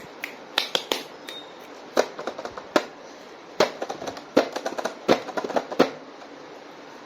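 Plastic toy packaging being handled and opened: irregular sharp clicks and crackles coming in several quick clusters.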